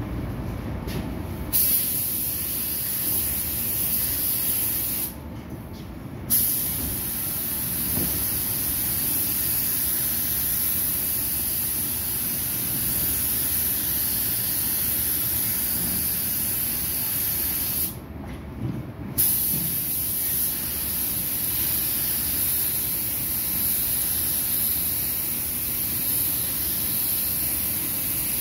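Gravity-feed spray gun hissing with compressed air as paint is sprayed. The hiss starts about a second and a half in and stops twice as the trigger is released, about five seconds in and about eighteen seconds in, with a sharp burst each time it starts again. A steady low rumble runs underneath.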